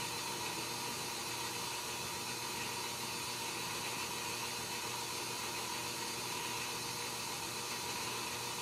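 Steady background hiss with a faint hum: room tone with no distinct sound.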